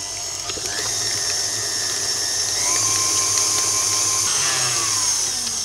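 Electric stand mixer running with its wire whisk attachment, beating egg yolks, honey, lemon zest and vanilla in a stainless steel bowl. It makes a steady high motor whine, and the pitch starts falling near the end as the mixer slows.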